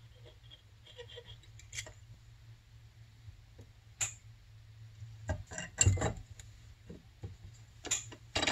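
Small metal carburetor parts clicking and knocking against each other and the workbench during reassembly, a scatter of sharp taps with the loudest cluster about six seconds in, over a faint steady low hum.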